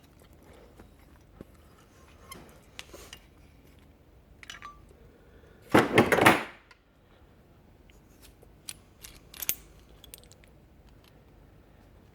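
Metal pipe and a hand pipe swager being handled: scattered small metallic clinks and clicks, with one louder clatter lasting about a second midway.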